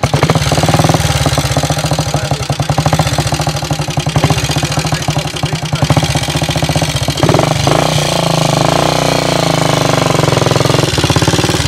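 Classic trials motorcycle's engine starting and running with a rapid, even beat. About seven seconds in it revs up and holds at higher revs.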